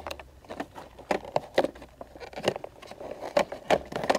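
Irregular plastic clicks, knocks and scraping as the stock fog light assemblies are worked out of the bumper mounts by hand.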